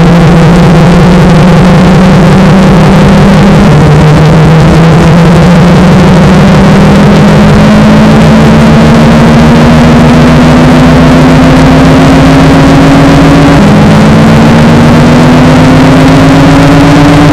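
Washing machine motor whining on a spin cycle, its pitch climbing as the drum speeds up, with two sudden upward steps. Very loud and heavily distorted.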